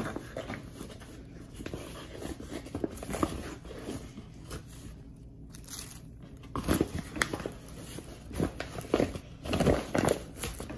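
A measuring cup scooping and tipping flour into a plastic bag, with the bag crinkling: irregular short rustles and soft crunches, busiest in the second half.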